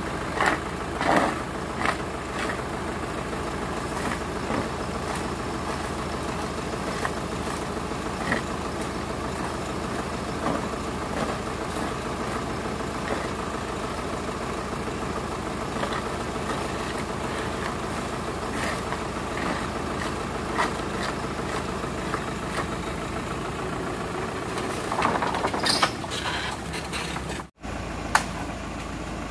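Lorry engine idling steadily, with occasional short knocks and rustles as loose oil palm fruitlets are gathered into a basket.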